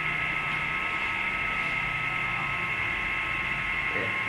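Conveyor belt and Sartorius metal detector running: a steady hum with a constant high whine.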